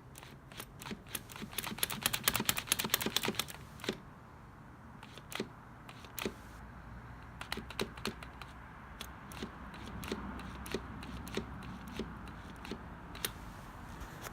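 Light clicks and taps from hands working a dirt bike's clutch cable and lever: a quick rattling run for a couple of seconds, then scattered single clicks.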